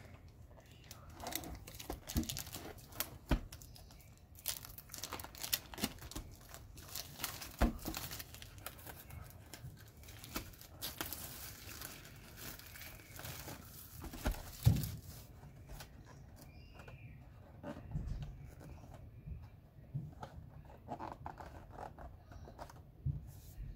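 Clear plastic shrink-wrap being torn and crinkled off a cardboard trading-card box, with scattered clicks and taps as the box is handled. The crackling is thickest in the middle and thins out to occasional taps near the end.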